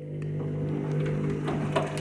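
Washing machine running with a steady electric hum that swells up over the first half second, with light irregular rattles and clicks over it.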